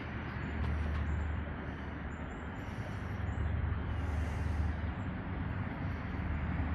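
Outdoor background: a steady low rumble under an even faint hiss, with no distinct events.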